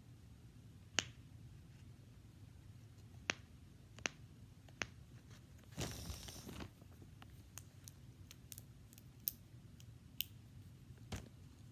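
Fidget toys being handled: scattered sharp clicks and taps, about a dozen spread unevenly, with a short rustle about six seconds in.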